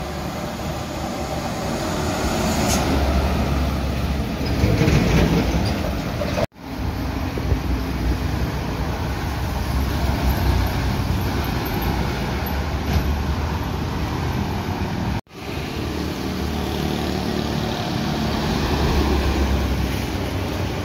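Road traffic: modified light trucks, along with cars and motorcycles, driving past, their engines and tyres making a steady rumble that swells as vehicles come close. The sound cuts out sharply twice, for a moment each time.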